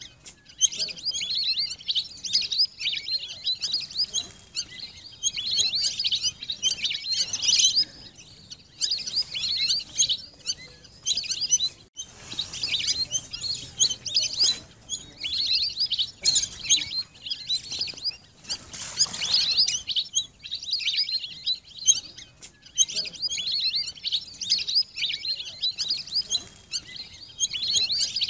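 Lesser whistling ducks calling: many high, whistled chirps in quick bouts of a second or two, with short breaks between them.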